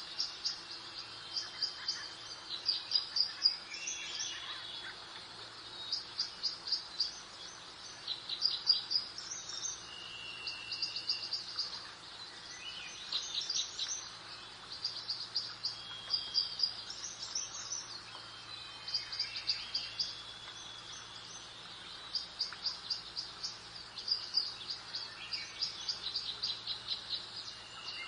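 Songbirds singing in a spring garden: rapid trills of short, high chirps repeat every second or two, with an occasional held whistled note, over a steady soft background hiss.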